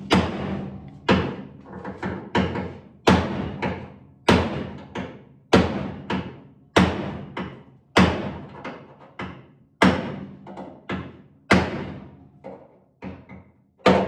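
Hammer blows on the steel hinge mounting bracket in a 1966 VW Beetle's rear body, roughly one heavy ringing strike a second, each followed by a lighter rebound hit. The bracket is being driven upward to close the decklid gap.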